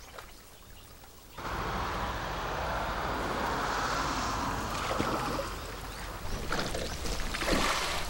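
Water splashing and trickling around a small rowboat worked with oars, starting about a second and a half in, with a few louder splashes near the end.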